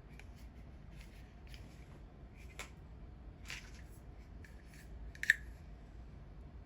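Hair dryer attachments and packaging being handled: a series of light rustles and taps, with one sharp click a little past five seconds in.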